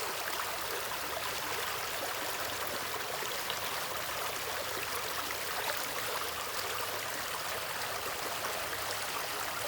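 Stream water running and trickling over rocks, a steady, even rush with small splashes and gurgles throughout.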